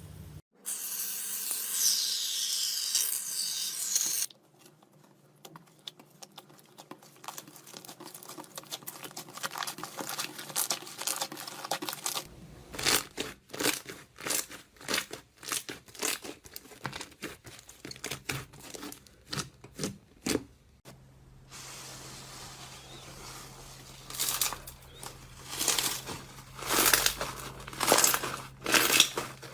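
A few seconds of loud hiss, then after a quieter stretch a long run of quick, irregular crinkling and tearing sounds.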